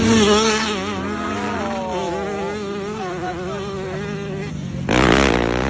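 Motocross bike engines revving and buzzing as a rider passes close and pulls away down the track. Other bikes are heard further off. The pitch shifts and falls a couple of seconds in, and a sudden loud rush of noise comes near the end.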